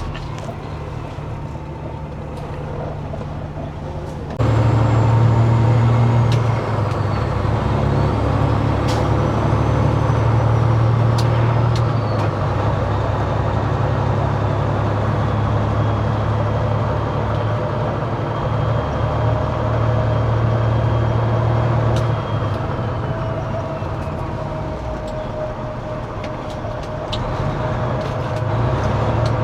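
Semi-truck's diesel engine running: a steady low drone that gets suddenly louder about four seconds in, with a faint high whine rising and falling over it.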